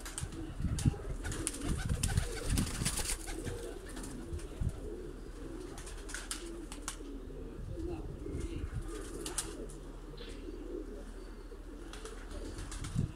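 Teddy pigeons cooing in a low, continuous, pulsing murmur, with scattered short clicks and rustles.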